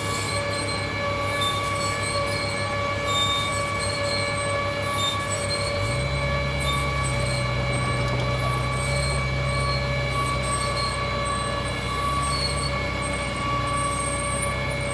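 Pile-drilling rig and mini excavator running: a steady high hydraulic whine with several tones over the diesel engines. About six seconds in a deeper engine note comes in and holds as one machine takes on load.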